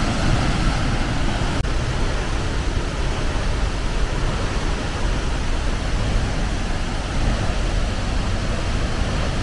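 Waterfall, a single cascade plunging into a pool, making a steady, even rushing noise.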